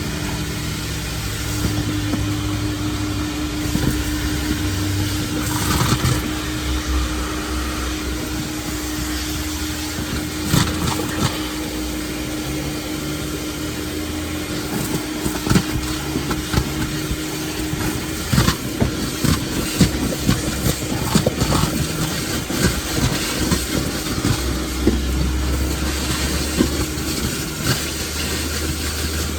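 A steady motor drone with an even hum. From about halfway on, a run of short knocks and clatter sits over it.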